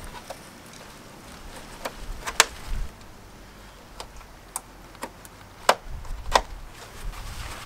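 A series of sharp plastic clicks and snaps, spaced irregularly about half a second to a second apart, as push pins are pressed into the top of a plastic F-150 grille.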